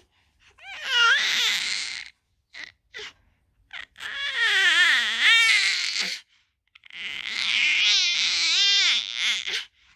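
A three-month-old baby's voice: three long, wavering cries or squeals that slide up and down in pitch, with a few short squeaks between the first two.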